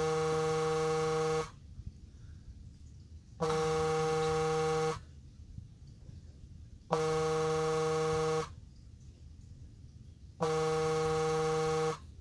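Incoming phone call alert: a flat, steady buzzing tone sounding four times, each about a second and a half long with two-second gaps, the pattern of a call ringing.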